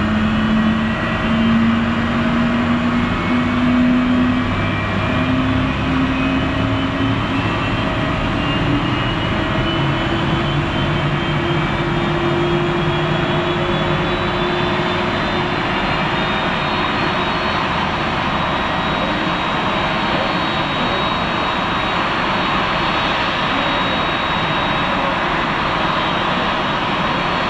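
General Electric CF6 turbofan engines of a Boeing 767-300ER running with a steady jet rush and a whine. The whine climbs slowly in pitch through roughly the first half as the engine spools up, then holds level.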